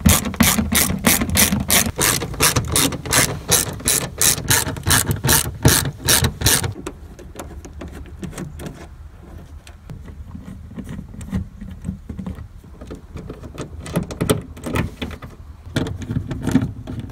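Socket ratchet clicking rapidly, about four clicks a second, as a 10 mm bolt is backed out of the fuel pump access cover. The fast clicking stops about seven seconds in, followed by scattered, fainter clicks as the wrench goes on to the next bolts.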